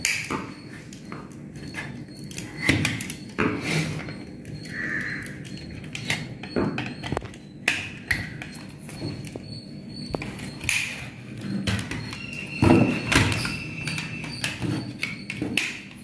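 Hands working on a plastic modular switch box: irregular clicks, taps and knocks from a screwdriver at the switch terminals and stiff wire being bent and pushed against the plastic plate, with the loudest knocks about three seconds in and near the thirteen-second mark.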